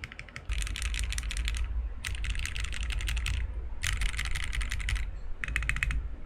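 Typing on a top-mount TKL mechanical keyboard with Akko x HMX Stellar Rose switches, a POM plate and PBT keycaps: fast, clacky runs of keystrokes in four bursts with short pauses between.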